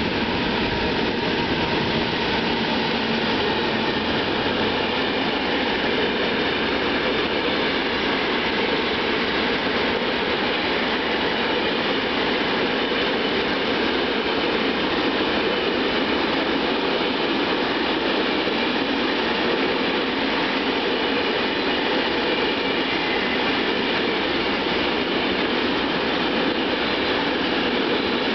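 Freight train passing close by: an FS 'Tigre' electric locomotive followed by a long string of loaded flat wagons, their steel wheels running on the rails in an even, steady noise.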